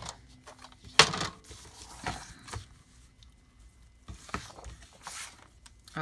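Sheets of paper being handled and rustled, in several short rustles, the loudest about a second in.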